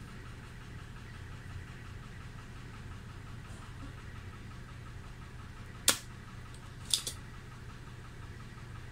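Spring-loaded desoldering pump (solder sucker) snapping as it sucks molten solder off the joints of burnt capacitors on a gauge circuit board. There is one sharp snap about six seconds in, then another sharp click and a fainter one a second later, over a steady low hum.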